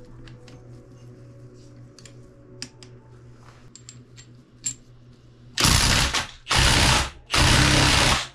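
Light clinks of steel transmission gears being handled, then, past halfway, a cordless impact wrench on the end of a Subaru 5-speed manual transmission gear shaft, run in three short loud bursts.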